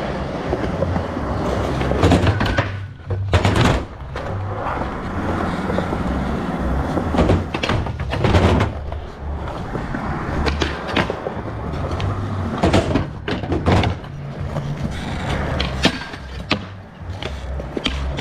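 Skateboard wheels rolling on smooth concrete with a steady rumble. Several sharp clacks of the board hitting the ground are spread through it.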